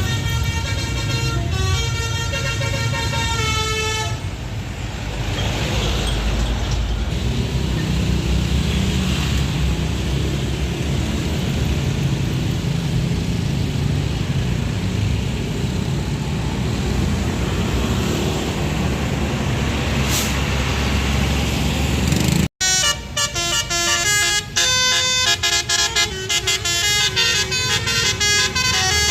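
Indonesian 'telolet' multi-tone bus horn playing a quick run of stepping notes for about four seconds, then a long stretch of low engine and road rumble. After a sudden cut near the end, the horn plays another busier run of changing notes.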